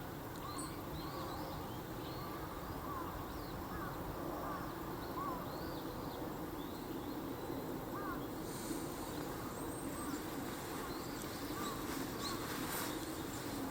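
Birds calling outdoors: many short, arching chirps repeated about once or twice a second over a steady low background hum.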